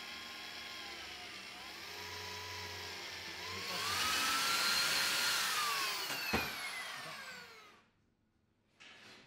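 Handheld electric drill boring into a steel bar clamped in a vise: the motor whine sags in pitch as the bit takes load, then grows louder with a cutting hiss in the middle. A sharp click comes shortly before the motor winds down and stops near the end.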